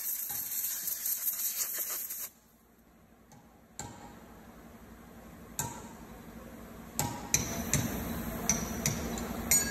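Steel clutch gearbox parts clinking and knocking together as a clutch piston plate is handled over its drum: about eight short sharp metal clinks spread over the last six seconds. Before them a steady high hiss runs for about two seconds and cuts off suddenly.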